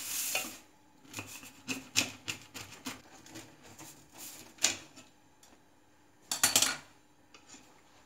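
Kitchen handling noise: a string of small clicks and knocks as a metal pizza pan and a knife are handled on a stone countertop, then one louder scrape about six and a half seconds in.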